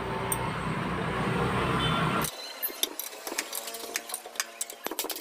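A steady mechanical rumble cuts off abruptly about two seconds in. After it come light metallic clicks and clinks of a ring spanner working the rocker-arm nuts on the cylinder head of a small single-cylinder diesel engine.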